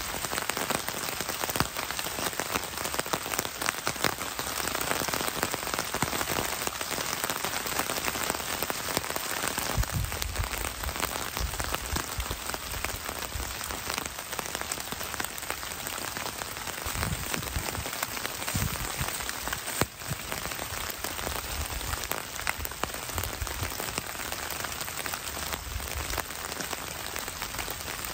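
Steady rain falling in the woods, a dense patter of separate drops, with a few soft low thumps partway through.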